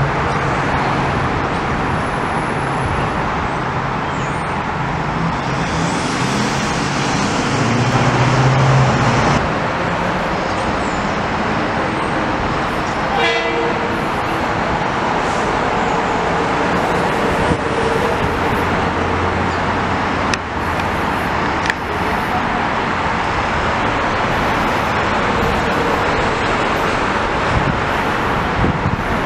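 Metro-North M8 electric train running into the station: a steady rumble of wheels on rail under a low, even hum. The hum swells and then stops about nine seconds in, and the rolling noise carries on.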